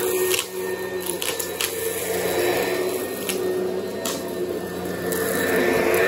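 Oreck XL commercial upright vacuum running over dirty carpet, its motor humming steadily and swelling with each push and pull of the head. Several sharp crunchy clicks cut through as it sucks up grit and debris from the carpet.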